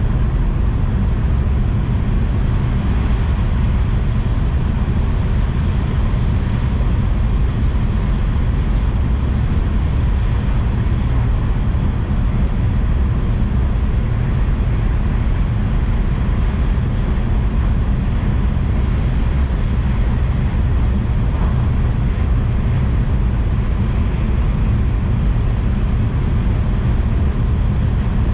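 Tohoku Shinkansen train running at speed, heard from inside the passenger car: a steady, unchanging low rumble with a rushing hiss over it.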